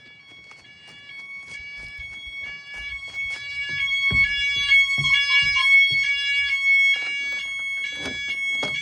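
Household smoke alarm sounding a shrill, rapidly pulsing beep that grows louder over the first few seconds and then holds steady. A few dull thumps come partway through.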